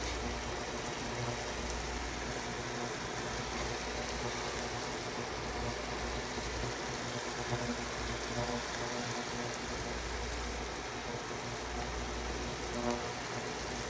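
Broccoli florets simmering in water in a stainless steel pan: a steady hiss over a low, even hum.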